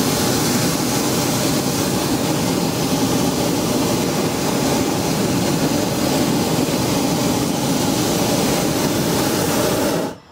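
Hot-air balloon's propane burner firing in one long, steady blast that cuts off suddenly near the end.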